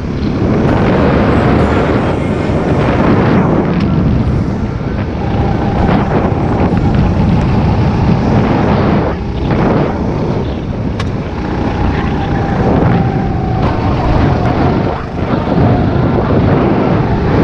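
Sodi go-kart engine running hard at speed, with wind buffeting the onboard microphone; the engine note drops away briefly a few times.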